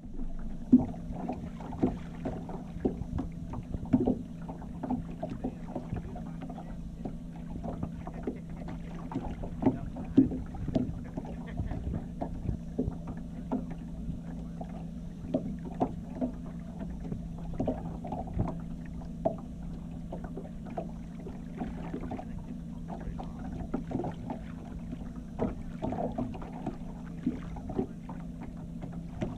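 Boat motor running with a steady low hum while trolling, with small waves slapping irregularly against the hull.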